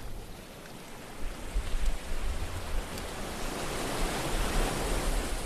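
Logo-reveal sound effect: a rushing whoosh like surging water that swells toward the end, with deep low thuds about a second and a half in and again at the close.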